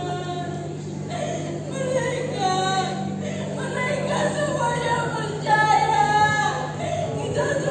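Female singing, a slow melody with long held and gliding notes, over a steady low hum.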